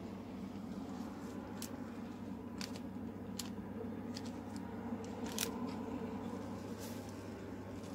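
Clear plastic packaging and leather camera accessories being handled: a few short, sharp crinkles and clicks, the loudest about five seconds in, over a steady low hum.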